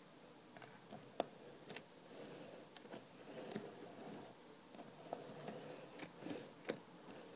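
Model diesel locomotives moving slowly on model railway track: a faint motor-and-wheel murmur with scattered small clicks, the sharpest about a second in and a few more near the end.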